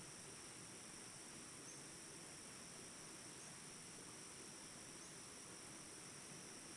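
Faint, steady insect chorus with a continuous high-pitched drone.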